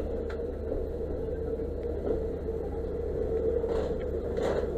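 Fire engine running steadily at a fire, its engine and pump making a constant low rumble with a steady hum. A couple of short hisses come near the end.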